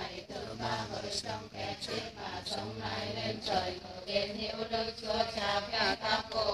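A group of women chanting Vietnamese Catholic prayers aloud in unison, many voices overlapping without a pause.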